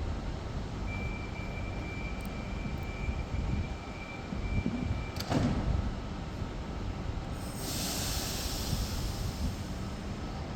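NSW TrainLink Oscar (H-set) electric train running with a steady low rumble and a thin, steady high tone for the first few seconds. A single loud clack comes about halfway through, followed by a few seconds of hiss.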